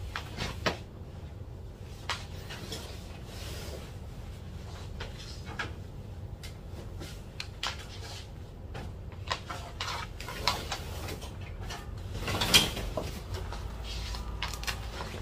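Kitchen handling noises: scattered light knocks and clicks of cupboards, dishes and utensils being moved, with a louder clatter late on, over a steady low hum.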